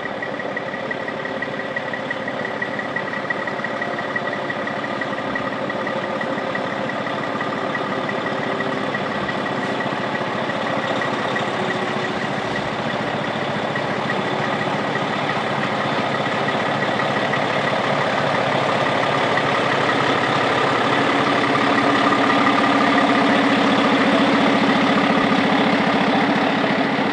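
Heavy truck engine running, slowly growing louder as it draws closer.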